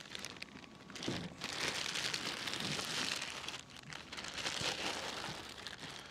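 Plastic packing bag crinkling and rustling as it is pulled off a large portable power station. It grows louder about a second in and goes on unevenly.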